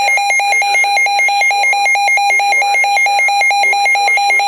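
Electronic emergency alert alarm beeping rapidly, several beeps a second, with a higher warbling tone alongside: the alert tone of a severe thunderstorm warning.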